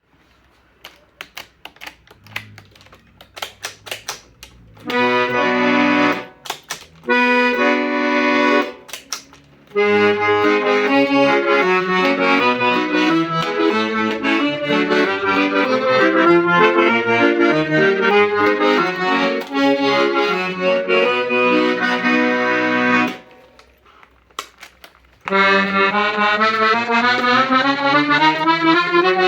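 G. Argentati Italian accordion being tried out: a few clicks of keys and bellows, then two held chords, a long passage of chords and melody, and after a short pause a run of notes climbing steadily in pitch.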